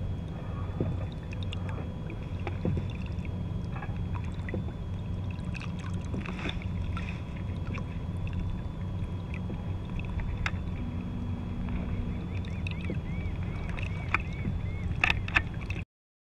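Steady low rumble with small splashes and knocks of water around a small boat on open water, and a few sharp clicks near the end before the sound cuts off.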